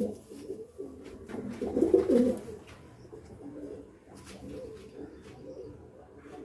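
Domestic pigeons cooing in a loft: a low, continuous murmur that swells to a louder coo about a second and a half in.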